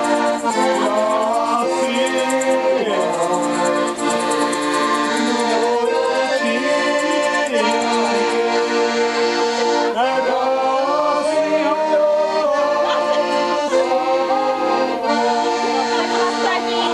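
Accordion playing a tune, sustained chords under a moving melody.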